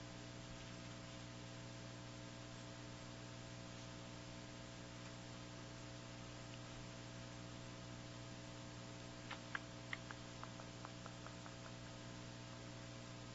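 Steady electrical mains hum, with a few faint clicks about nine to eleven seconds in.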